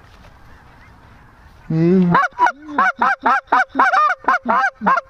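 Hand-blown goose calls imitating lesser geese: after a quiet start, a loud rapid run of short clucking honks, about four a second, to coax a looking flock into the decoys.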